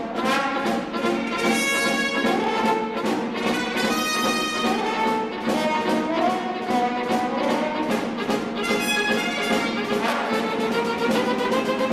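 Orchestral cartoon music led by brass, trumpets and trombones, playing with a quick, steady beat.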